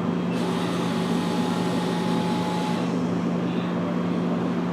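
Vending machine's spiral-coil vend motor running to dispense a snack: a steady whir with a faint thin whine that starts just after the selection and stops after about two and a half seconds. The coil turns but the bag stays hung in it instead of dropping: the machine is jammed.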